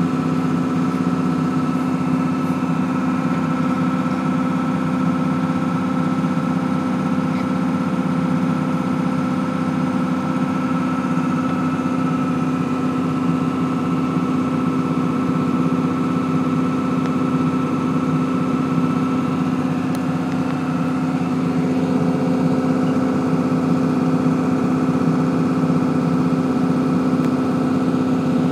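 Grain bag extractor and its unloading auger running steadily under power while emptying a grain bag, a constant machine drone with a steady low hum. A higher whine in the drone fades out about two-thirds of the way through.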